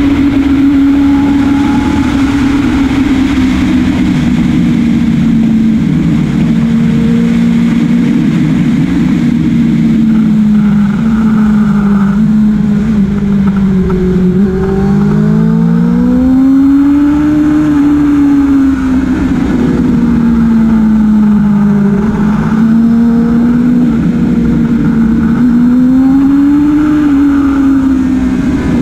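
Motorcycle engine at lapping speed on a racetrack, its note sinking over about fourteen seconds as the bike slows into a corner, then rising as it drives out. It dips and rises again twice more, with a steady rush of wind throughout.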